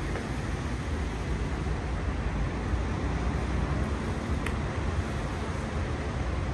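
Steady rain falling over a city park, mixed with a continuous low rumble of road traffic.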